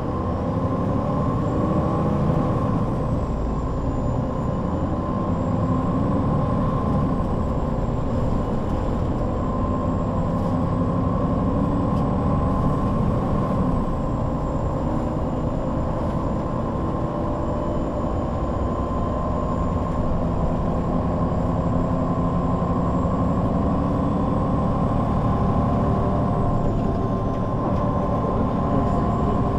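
MAN NL 263 low-floor city bus running in service: its six-cylinder diesel engine and drivetrain hum steadily, the pitch shifting a few times as the engine speed changes. A faint high whine wavers above it.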